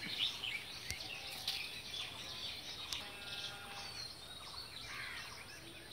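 Faint outdoor ambience with scattered distant bird calls and a few light handling knocks from the phone being moved.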